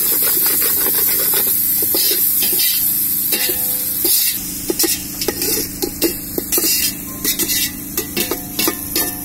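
Chopped onions, tomatoes and green chillies sizzling in hot oil in a large metal pot, with a metal spatula stirring and scraping against the pot. The sizzle eases about four seconds in, leaving scattered scrapes and clicks.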